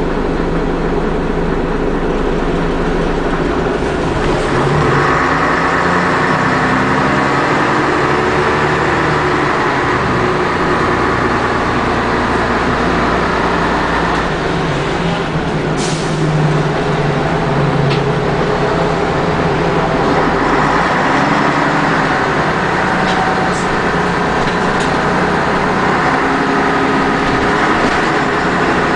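Scania double-decker bus heard from inside the passenger saloon while under way: engine and drivetrain running steadily. The engine note grows louder and brighter over two long stretches as the bus drives on, with a brief sharp click about halfway through.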